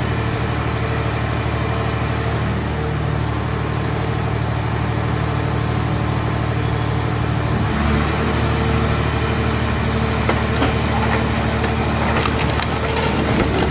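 Movable car baler running, its engine and hydraulic pump giving a steady hum that changes note about eight seconds in. Scattered cracks and snaps of metal being crushed come in near the end.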